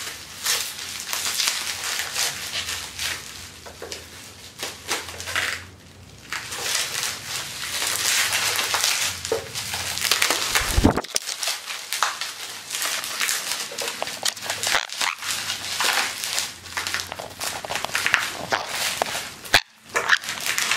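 Plastic bubble wrap crinkling and crackling as it is pulled and peeled off an acrylic jar by hand, in irregular handfuls with a couple of short pauses and a dull bump about halfway through.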